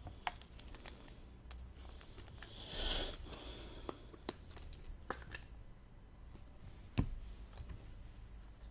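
Trading cards being handled and flipped through: scattered soft clicks and taps, a short sliding swish about three seconds in, and a sharper tap about seven seconds in.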